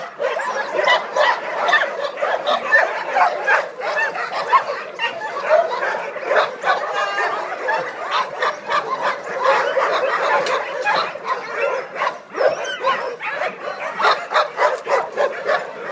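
Many dogs barking at once, a dense, unbroken clamour of overlapping short barks.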